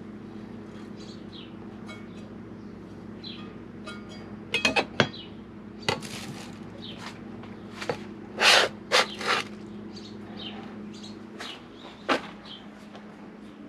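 Food-prep clatter at a kitchen counter: a few sharp knocks and short scraping, rustling bursts, the loudest a little past the middle. Birds chirp faintly throughout over a steady low hum.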